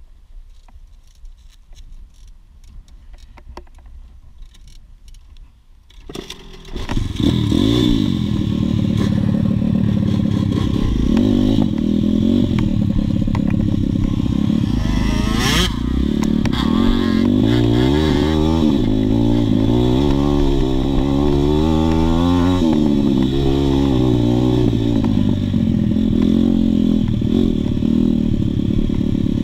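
Dirt bike engine that comes in suddenly about six seconds in. It then runs under load as the bike is ridden along a dirt track, its pitch rising and dropping again and again with the throttle and gear changes. There is a single sharp knock about halfway through.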